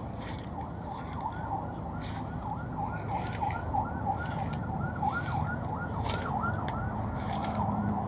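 A bird calling a long, even series of short, arched notes, about three a second, over footsteps rustling through grass and dry leaves.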